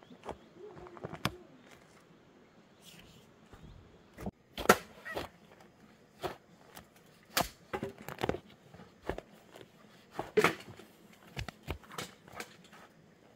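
Hand hoe chopping into soil, a series of dull strikes at an uneven pace of about one a second, with loose earth falling.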